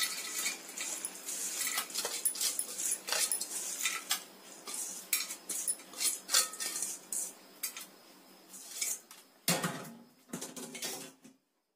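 Crisp fried snack mixture of flattened rice, field beans and peanuts rattling and scraping against a perforated steel colander and a steel bowl as a hand pushes it through, with light clinks of the steel. About nine and a half seconds in, a short lower-pitched sound of a different kind.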